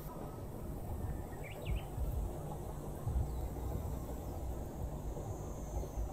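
Outdoor ambience: a steady low rumbling noise with a brief high chirp about a second and a half in.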